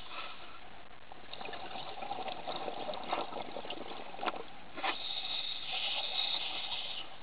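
Scuba diver's exhaled bubbles from the regulator, heard underwater: a crackling, bubbling rush with a few sharp clicks in the middle and a brighter hiss near the end.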